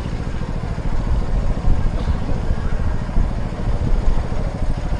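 An engine running steadily, with a rapid low pulsing.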